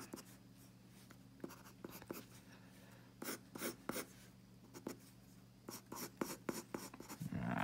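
Soft Ebony graphite art pencil scratching on sketch paper in quick strokes. The strokes are faint, come in clusters, and grow busier in the second half.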